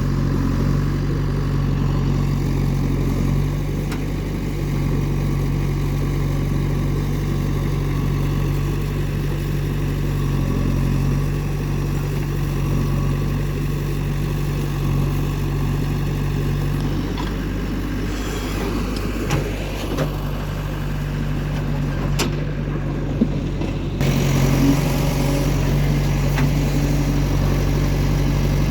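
Heavy diesel engine running steadily at an even speed, with a few sharp knocks a little past the middle and a change in the engine sound near the end.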